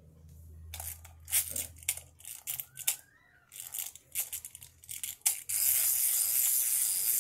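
Uneven clicks as a small plastic wind-up crawling baby toy is handled and wound. About five and a half seconds in, its clockwork motor starts a steady high whirr as the toy is set crawling.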